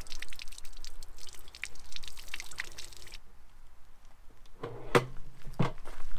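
Water splashing and trickling into the urine-diverting front bowl of an Air Head dry separating toilet during a pour test. It stops about three seconds in, and two sharp knocks follow near the end.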